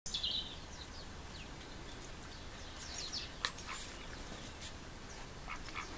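Quiet outdoor ambience with brief high-pitched bird chirps: one clearer call at the very start, then scattered short peeps, and a single sharp click about three and a half seconds in.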